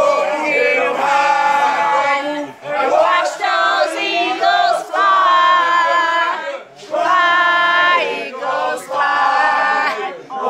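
A group of people singing loudly together in long held notes, a celebratory chant with short breaks about two and a half and seven seconds in.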